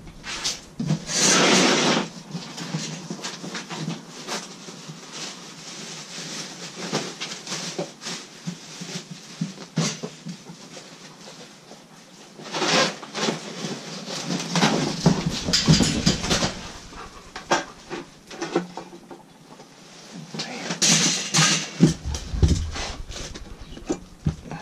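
Irregular rustling, scraping and knocking as a heavy 12-inch benchtop disc sander is lifted out of its box and set down, with louder bursts of handling noise about a second in, midway through and near the end. The sander is not running.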